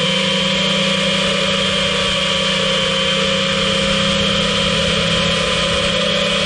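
5-inch FPV quadcopter's brushless motors and propellers running at a fairly even throttle: a steady buzzing hum with a high whine over it.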